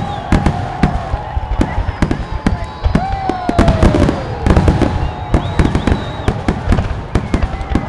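Fireworks going off in a dense, irregular string of sharp bangs and crackles, many in quick succession.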